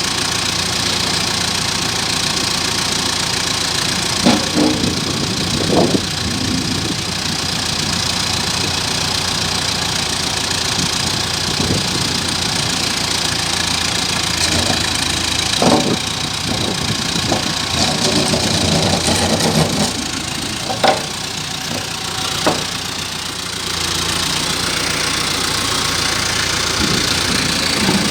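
Large engine running steadily at idle during the unloading of a machine from a tow lorry, with a few sharp clanks and knocks scattered through it.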